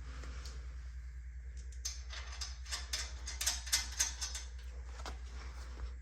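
Quick light clicks and clinks of metal steering parts being handled, over a steady low hum.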